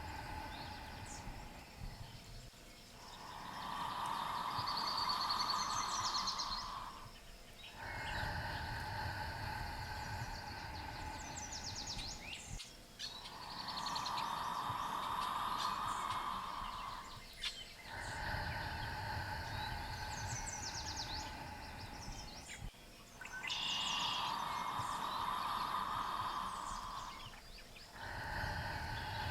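Birds chirping over a soft ambient sound bed that swells and eases in a slow, even cycle about every ten seconds, pacing five-second breaths in and out.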